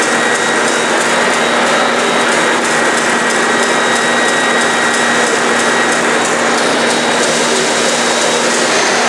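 Vertical bandsaw running a half-inch carbide grit-edge blade through a block of graphite, mid-cut: a steady hiss over a steady hum, with a faint high whine.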